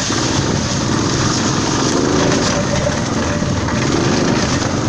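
Golf cart driving over rough woodland ground: a loud, steady running noise, with the pitch rising and falling a couple of times.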